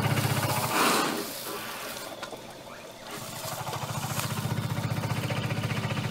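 Idling vehicle engine, a low fast-pulsing hum. About a second in, a brief rushing noise comes and the engine hum drops away. The hum returns a little after three seconds in and runs steadily.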